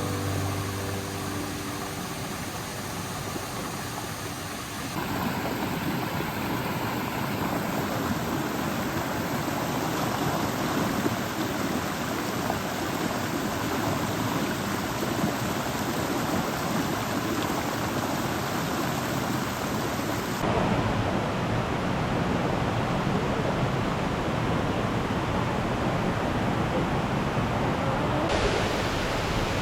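Waterfall water rushing steadily, a dense hiss of falling water. Its character changes abruptly a few times, about five, twenty and twenty-eight seconds in, as the shots cut.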